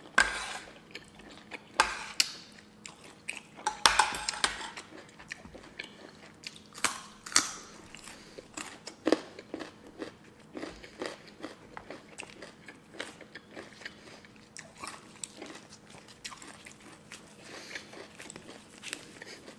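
Close-miked eating: chewing crunchy salad and raw vegetables, with crisp bites and crunches at irregular intervals, loudest in the first eight seconds.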